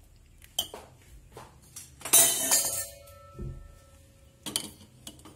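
Metal spoon and steel pot clinking as hot rice-flour dough is mixed in the pot. About two seconds in there is a loud clatter, and the metal rings on with a steady tone for about two seconds.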